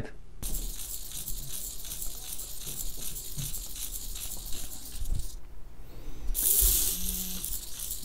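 Micro hobby servos whirring and buzzing as they sweep, a thin rattly hiss, with a louder burst of hiss about six and a half seconds in.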